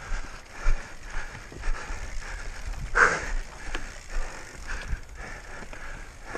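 Mountain bike ridden hard over rough trail, heard from the rider's own camera: chain, frame and tyres rattling and knocking without a break, with a louder knock or scrape about three seconds in.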